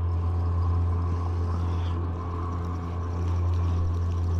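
Boat motor running steadily at low speed, an even low hum.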